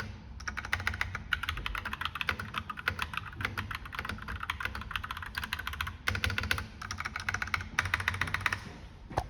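Fast typing on an AKKO 3061 mechanical keyboard with Jelly Pink linear switches and PBT keycaps: a dense run of keystrokes in bursts with short breaks, stopping shortly before the end.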